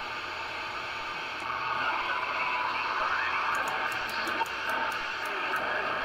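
Static and hiss from the speaker of a Magnum Omega Force S45 CB radio on AM, with the frequency knob being turned across the 11-metre band. About a second and a half in, it gets louder as faint distorted signals and whistling tones come through, and a run of light clicks comes in the middle as the knob steps through frequencies.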